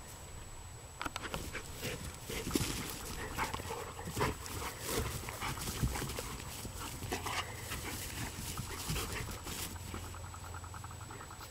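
Dogs playing rough on grass: panting and scuffling, with scattered short sharp sounds throughout.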